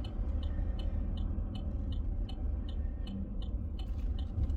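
Low rumble of a car rolling slowly, heard from inside the cabin, with a light, regular ticking about three times a second.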